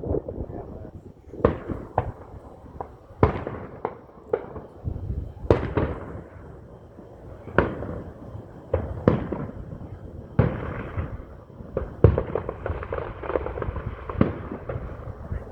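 Fireworks going off: a string of sharp bangs a second or two apart, each trailing off in a rumble, then a denser run of crackling pops from about ten seconds in.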